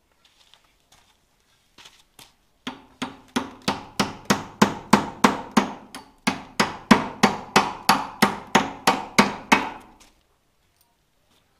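Hammer blows struck in quick succession, about three a second, in two runs with a brief pause about halfway.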